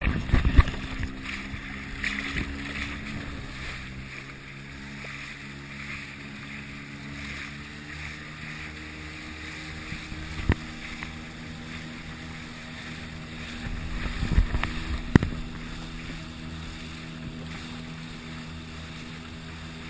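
Small combustion outboard motor on a motorized fishing kayak, running at a steady speed, with water splashing and rushing against the hull. A few sharp knocks come through, one about halfway through and one near the end.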